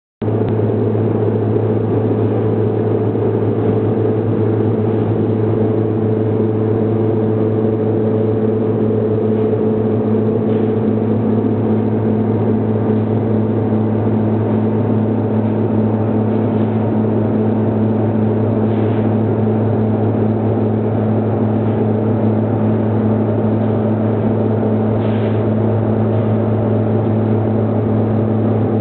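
Inverted vertical wire drawing machine running: a loud, even mechanical hum with a low drone and a few steady tones above it, unchanging throughout.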